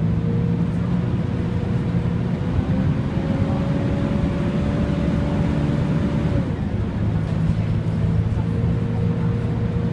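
Volvo B10BLE bus running with its very loud cooling fan: a steady diesel drone with a whine on top that rises a little and then drops away about six and a half seconds in.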